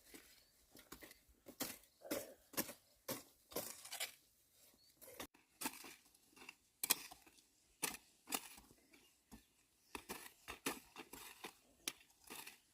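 Irregular, sharp scraping and cutting strokes, one to three a second, from a hand tool working wood.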